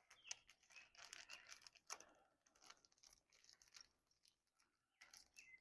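Near silence with faint scratching and scattered small clicks, typical of hands working with small parts and packaging.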